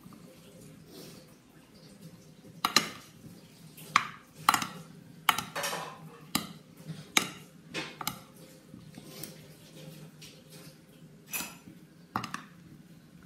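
Two metal spoons clinking and scraping against a glass baking dish while stirring a creamy chopped fruit and vegetable salad. The clinks come at an irregular pace, most of them in the first half, with a couple more near the end.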